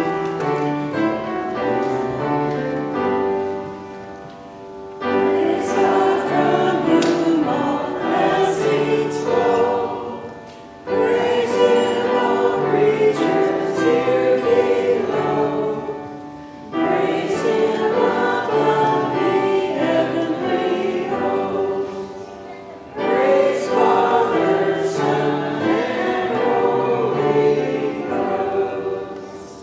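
A hymn sung with instrumental accompaniment, in phrases of about six seconds with short dips between them.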